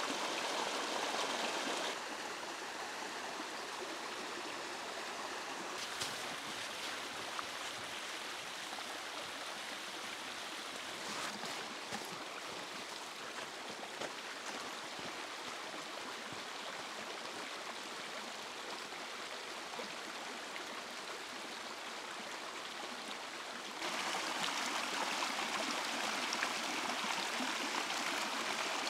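Small snowmelt stream rushing over stones, a steady rush of water. It drops quieter about 2 seconds in, with a few faint clicks in the quieter stretch, and becomes louder again near the end.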